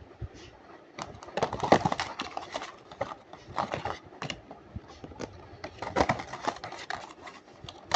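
Handling of a slime box and its contents: irregular crackling and clicking, with louder clusters about a second in, around three and a half seconds and about six seconds in.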